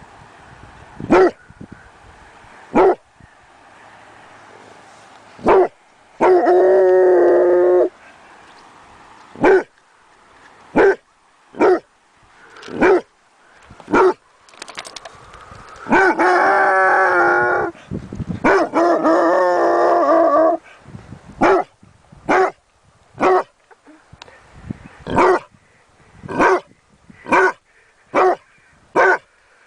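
A dog barking loudly in single, separate barks. Three long wavering howls come about six seconds in and twice in the middle. Near the end the barks come faster, roughly one a second.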